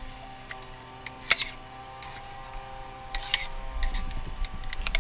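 Steel screwdriver scraping and clicking inside a spark plug tube of a Nissan four-cylinder engine, prying at a stuck rubber spark plug boot. There are a few light clicks, with two sharper scrapes about a second in and about three seconds in, over a faint steady hum.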